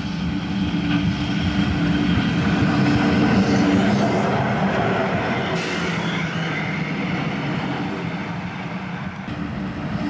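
JNR Class C62 steam locomotive moving under steam, with a steady hiss of escaping steam over a low hum.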